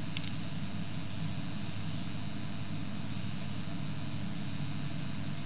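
Steady hiss over a low, even hum, with faint high insect chirps now and then.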